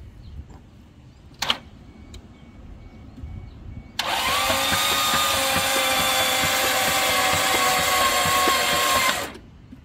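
A 1987 Toyota Supra's inline-six cranking on its starter motor for about five seconds, a steady whine over even pulses, turning over but not firing. A sharp click comes first, about a second and a half in.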